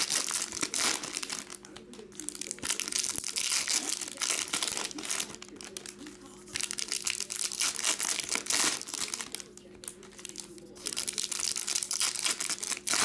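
Foil trading-card pack wrappers crinkling and tearing as packs are ripped open by hand. The noise comes in about four bursts of a couple of seconds each, with short quieter pauses between.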